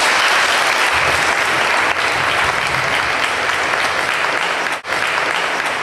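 Audience applauding steadily, dense clapping with a momentary drop near the end.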